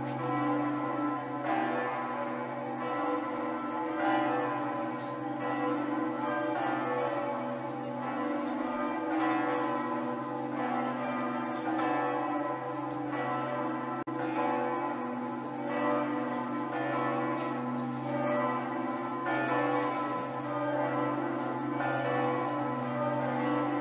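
Church bells ringing: a continuous stream of overlapping strikes over a steady, sustained hum.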